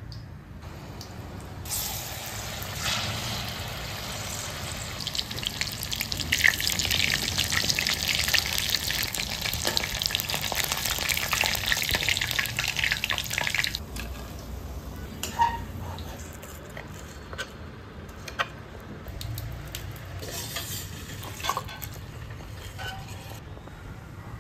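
Maida-coated chicken pieces frying in hot oil in a kadai, a dense crackling sizzle that stops suddenly a little past halfway. After it comes a quieter stretch with a few light taps.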